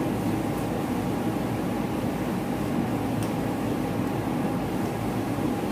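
Steady machine hum with a constant mid-pitched tone over a low rumble, like a running air conditioner or fan.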